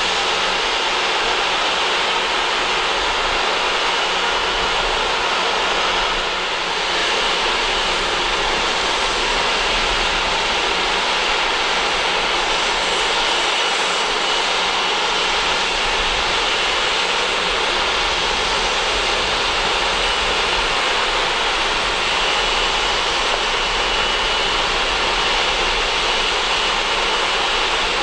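Boeing 777-200ER's twin jet engines running steadily at idle: a constant loud rush with a thin, steady high whine through it.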